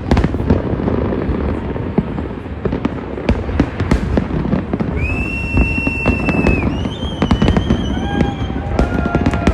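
Fireworks going off in a dense barrage of bangs and crackles over a constant low rumble. From about halfway, several high, steady whistles at different pitches sound over the barrage.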